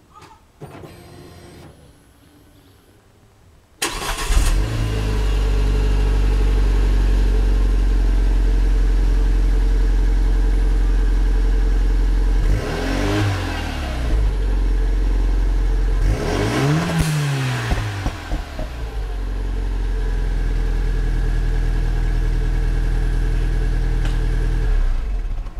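Renault Mégane R.S. 250's 2.0-litre turbocharged four-cylinder engine heard at its stock exhaust. It starts up about four seconds in and settles to a steady idle. It is blipped twice, each rev rising and falling back within about two seconds, then idles again until it stops abruptly at the end.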